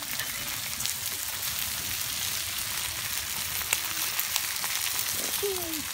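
Chicken breasts, steaks and sausages sizzling in a Rockcrok stoneware grill pan over an open wood fire: a steady hiss of frying with occasional sharp crackles.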